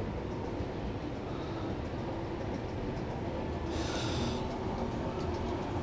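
Mall escalator running: a steady low rumble and hum from the moving steps and handrail, with a short hiss about four seconds in.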